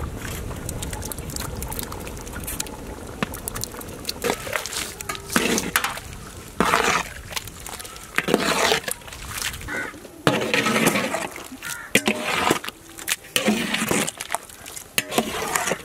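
Coconut milk pouring into a large pot of simmering prawn gravy, then the thick gravy sloshing as it is stirred with a long ladle, in uneven strokes about once a second.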